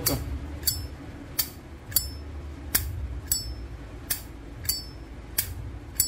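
A standard-case (non-Armor) tumbled brass Zippo lighter's lid flipped open and snapped shut over and over, a sharp metallic click about every two-thirds of a second. Every other click carries a short bright ring, the Zippo's characteristic clink.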